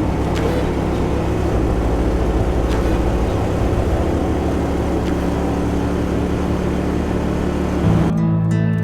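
A boat motor running steadily, with a rushing haze over it. About eight seconds in it cuts off suddenly to acoustic guitar music.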